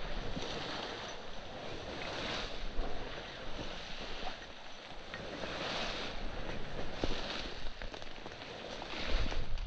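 Wind rushing over the microphone in swells, gusting harder with a low buffeting rumble near the end.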